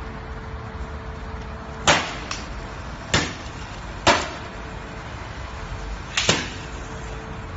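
Lithium battery cells under a nail-puncture test: a series of sharp pops, about five, the last one doubled, over a steady hiss.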